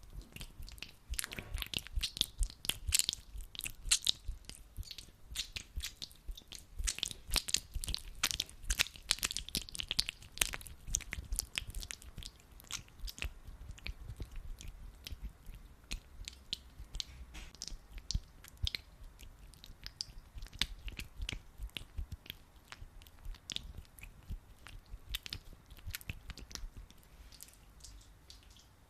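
Hands rubbing and squishing sticky aloe vera gel, making dense, irregular wet crackles and smacks. The crackles are busiest in the first half and thin out toward the end.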